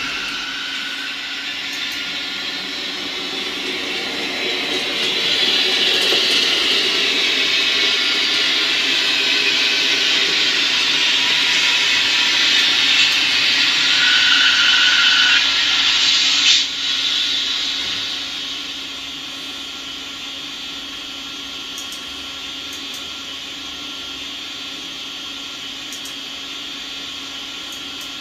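Märklin model train running on the layout's track: a steady whirring rolling hiss with a low hum underneath. It swells gradually over the first half, then drops sharply about halfway through and runs on more quietly.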